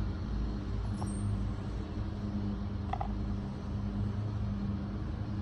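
Lawnmower engine running steadily in the background, a constant drone, with wind rumbling on the microphone.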